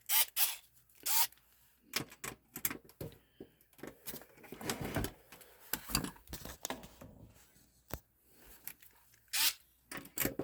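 Irregular clicks, knocks and scrapes of metal and plastic parts being handled while a Tandy 2000 computer is taken apart.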